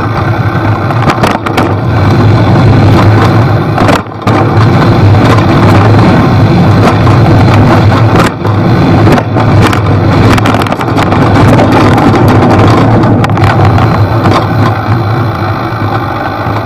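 Riding noise from a camera on a bicycle going downhill on a leaf-covered forest dirt trail: loud wind rush over the microphone and rumble of the tyres, with frequent small knocks from the bumpy trail. It drops out briefly twice and eases a little near the end.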